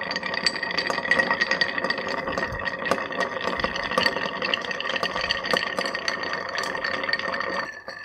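Ice rattling and clinking inside a glass mixing glass as a bar spoon stirs a cocktail: a steady, rapid tinkling with a ringing glass tone, which stops just before the end.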